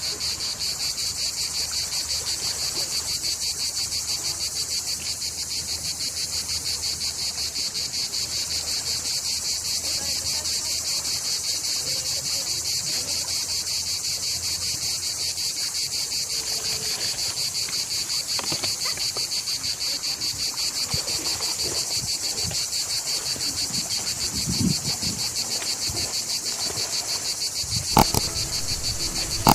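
Loud, steady chorus of crickets, a fast pulsing high trill that never lets up. A sharp click sounds near the end.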